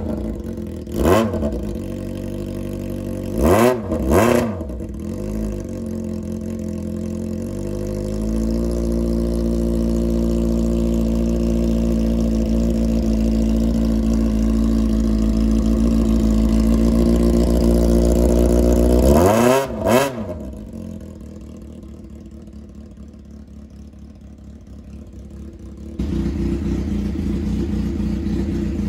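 Honda CBX400F's air-cooled inline-four running on straight pipes, revved in two quick throttle blips in the first few seconds, then held at a raised, steady speed for about ten seconds. One more sharp blip follows and it drops back to a quieter low idle, which suddenly gets louder near the end.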